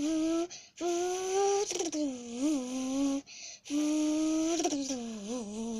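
A person imitating a car engine with his voice: long hummed notes that slowly climb and wobble in pitch, broken by quick breaths about half a second and three and a half seconds in.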